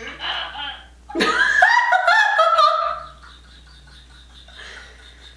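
A person laughing: a loud, high-pitched laugh starts about a second in and lasts about two seconds, then dies away to a few faint sounds.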